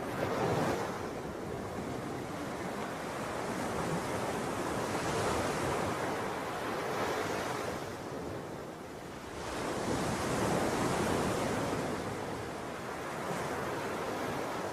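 Ocean surf: waves washing in and drawing back, the rush swelling and fading every few seconds, with a lull a little past halfway before the next wave builds.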